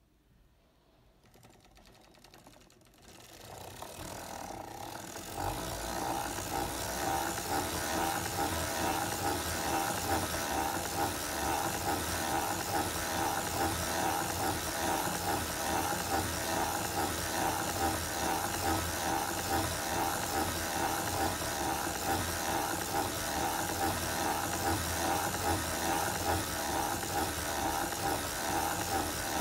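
Foster Victoria vintage circular sock machine being hand-cranked round and round, knitting plain rows for the foot of a sock. It starts a few seconds in and settles into a steady, fast, even clatter as the cam shell drives the needles.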